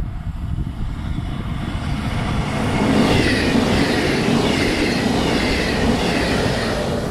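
Regional push-pull train of passenger coaches passing close by at speed, pushed by an E464 electric locomotive: a loud rush of wheels on rail that builds from about two and a half seconds in, with high falling whines as it goes by.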